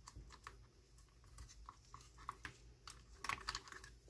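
Faint scattered clicks and taps of small plastic parts being handled while an arm is fitted into a car door lock actuator, with a short cluster of clicks about three seconds in.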